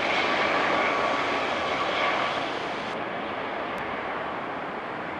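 Military helicopters, a Black Hawk and a Chinook, flying overhead: a steady rushing engine and rotor noise with a faint high turbine whine, growing quieter about halfway through.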